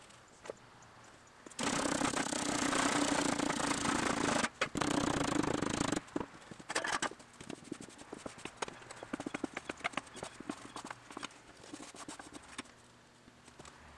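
Petrobond foundry sand being struck off flat in a wooden flask: a wooden bar scraped across the top of the flask in two strokes, a longer one and then a shorter one after a brief break. Afterwards come scattered light taps and rustles of loose sand as the flask is handled and brushed clean.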